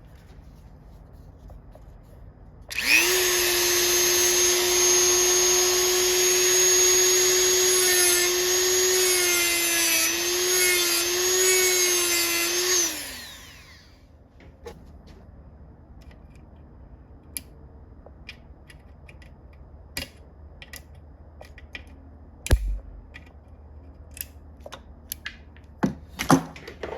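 High-speed rotary tool with a cutoff wheel starting up and cutting off the protruding part of a thread repair piece in a transmission case for about ten seconds. Its whine dips slightly in pitch under load near the end of the cut, then winds down. Light clicks and taps follow.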